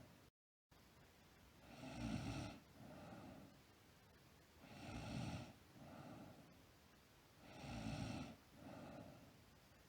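A sleeping girl snoring steadily, about one breath every three seconds. Each breath brings a louder snore followed by a shorter, softer one, three times over.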